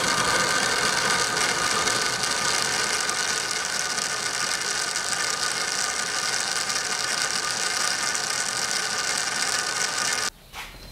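Belt-driven lathe turning a large stepped pulley while an old hand-forged boring bar cuts in its bore: a steady machine whir with a high cutting hiss. It cuts off suddenly near the end.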